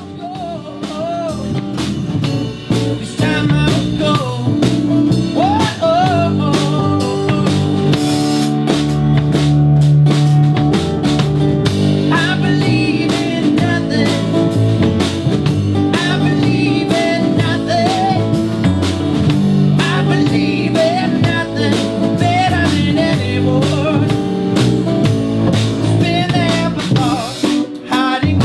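A band playing live: guitar and drum kit with a singing voice, in a bluesy style. The music swells in over the first second or so, then carries on steadily.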